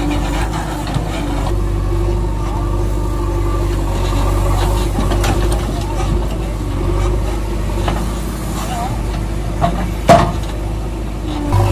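Engine of a heavy vehicle running steadily, with a single sharp knock about ten seconds in.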